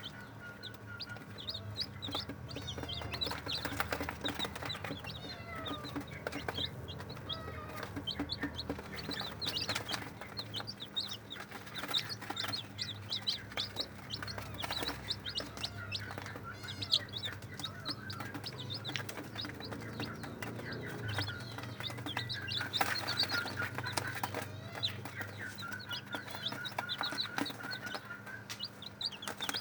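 A group of newly hatched day-old ayam kampung super chicks peeping nonstop, a dense stream of short high cheeps overlapping one another.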